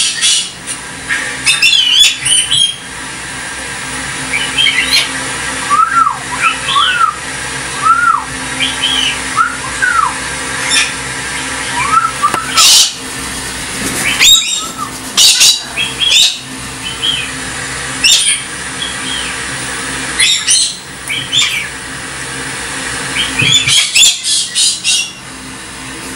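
Galahs (rose-breasted cockatoos) calling: bursts of harsh screeches mixed with a run of short, arching whistled notes, repeated in groups.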